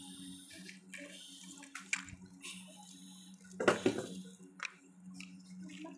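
Wooden sticks knocking and scraping against each other as they are handled, over a steady low hum. The loudest clatter comes a little past halfway.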